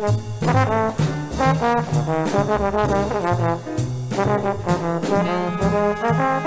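Jazz trombone solo over a B-flat blues: quick, flowing lines of short notes, with a walking double bass stepping along beneath and drums keeping time on cymbals.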